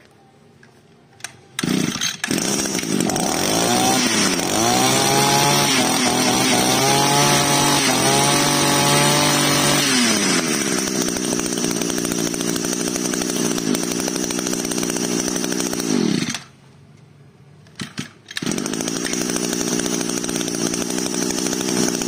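Small Echo Green 23cc two-stroke brush-cutter engine starting up about a second and a half in. It is revved up and down several times, then settles to a steady fast idle. It cuts out about sixteen seconds in and is started again a couple of seconds later, idling again.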